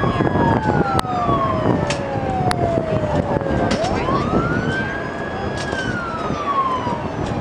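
Wailing sirens, each rising quickly and then falling slowly in cycles about four seconds long, with more than one siren overlapping.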